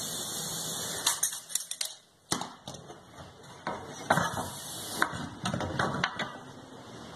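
Irregular clicks, knocks and light metallic clatter of hand tools being handled on pine boards, as a tape measure and a steel carpenter's square are picked up and laid on the wood.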